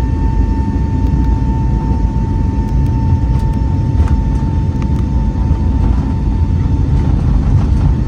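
Airbus A320neo jet engines running steadily: a loud, even low rumble with a thin steady whine over it.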